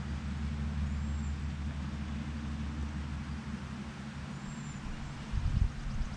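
Small engine running steadily with a low hum. A brief louder low rumble comes near the end.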